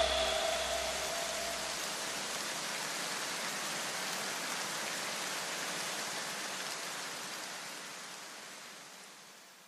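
An even hiss of noise left behind as electronic backing music cuts off, fading slowly away over about nine seconds, with a faint low hum dying out in the first two seconds.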